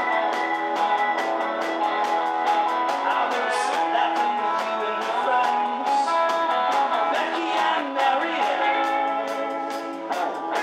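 Live rock and roll band playing: electric guitar and bass over a steady drum beat, with a man singing. The recording is thin, with almost no low bass.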